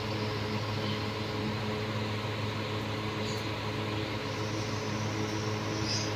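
Evaporative air cooler running: a steady motor hum under the even whoosh of its fan.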